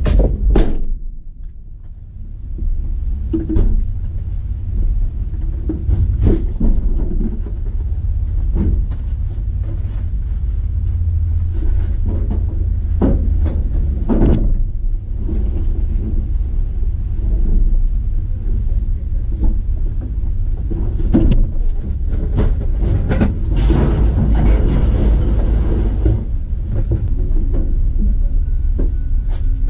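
Scattered knocks and clunks of junk being lifted out of and dropped from a pickup's bed, over a steady low rumble, with a busier run of knocks near the end.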